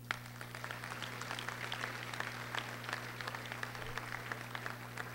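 Crowd applauding: many separate hand claps that start abruptly and keep up at an even pace.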